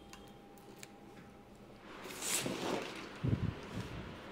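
Plastic film rustling as it is handled, a short crinkly swish about two seconds in, followed by a couple of low thumps a second later.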